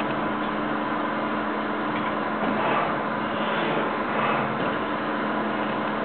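Automatic cookie depositing machine running: a steady mechanical hum with two brief louder swells partway through.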